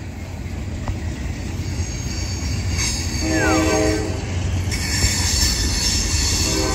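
Freight train cars rolling past with a steady low rumble, and a brief tone about three seconds in. From just under five seconds on, the wheels squeal on the curve, a bright, high hiss with ringing squeal tones.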